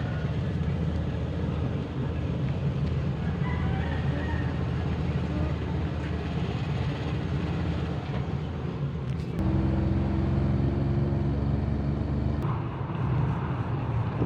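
Motor vehicle running, with a steady low engine hum and road noise; the sound changes abruptly twice, about nine and twelve seconds in.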